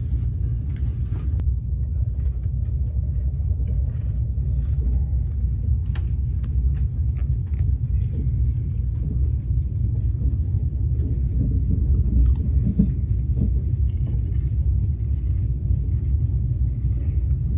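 Steady low rumble of a moving road vehicle heard from inside, with a few faint clicks and knocks.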